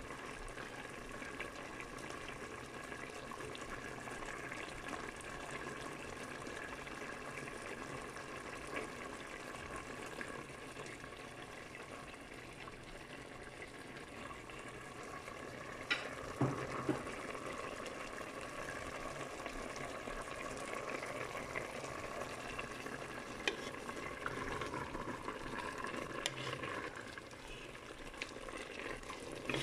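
Pot of chicken paksiw simmering in its broth over a steady faint hum, with a sharp click and a couple of low knocks about halfway through. Near the end a utensil stirs through the pot.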